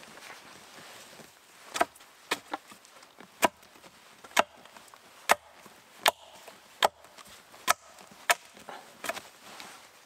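Sharp knocks of wood striking wood, roughly one a second, starting about two seconds in: a wooden pole or tool handle pounding on the logs of a lashed log wall.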